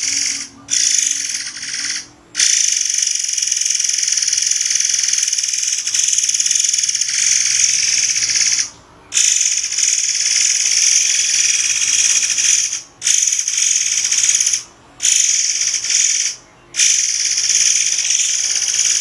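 A murai air's high, shrill, buzzing trill of rapid sharp notes, delivered in long unbroken stretches of one to six seconds, each cut off by a short pause before it starts again.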